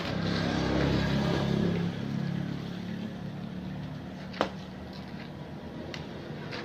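A motor vehicle passing on the road, swelling and then fading over the first two or three seconds, then a single sharp crack of a pecut whip about four and a half seconds in.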